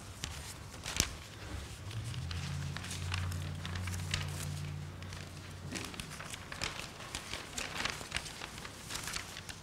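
Paper rustling and small knocks as sheets are handled and shuffled at a lectern, with a sharp click about a second in. A low steady hum runs underneath for a few seconds in the first half.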